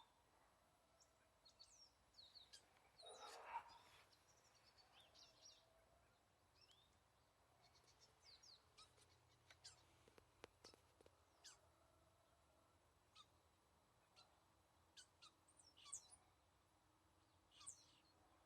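Faint wild birds chirping: short, high calls and quick sweeps, scattered and irregular, with one louder, lower call about three and a half seconds in.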